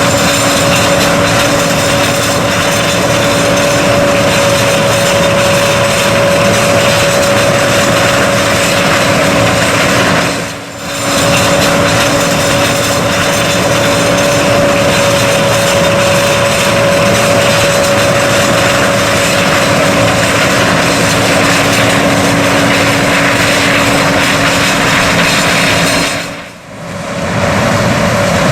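Large harvest machinery running steadily: an engine drone with a constant whine. The sound dips briefly twice.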